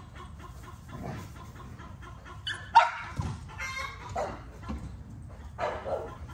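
Backyard chickens clucking and squawking, frightened by dogs moving about the yard: a handful of separate calls, the loudest and sharpest a little under three seconds in.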